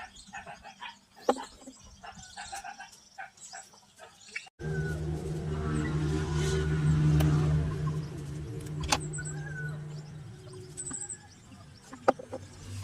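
Scattered animal and bird calls over a quiet background. Then, after an abrupt cut, a steady low motor hum starts, swells and eases off over about five seconds, with a sharp click near the end of it.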